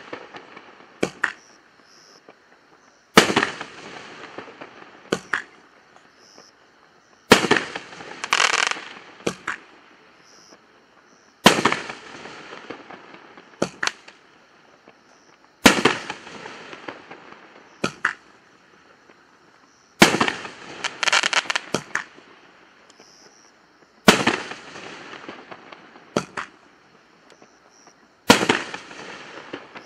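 Winda 'Ring Ring' 9-shot consumer fireworks cake firing its shots one by one, about every four seconds. Each shot is a loud, sharp bang that dies away, followed about a second later by a cluster of smaller pops.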